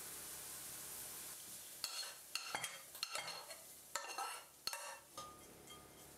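Metal spoons scraping and clicking against a glass bowl and the rim of a frying pan as fried onions are scraped out and stirred into moist bulgur. A faint steady hiss for the first two seconds, then scattered sharp clicks and scrapes.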